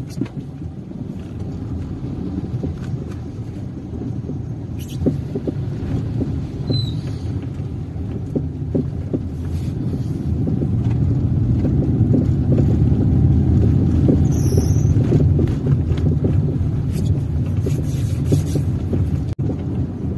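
Inside a moving car's cabin: a steady low rumble of engine and tyres on an uneven street, growing louder about halfway through, with a few short knocks.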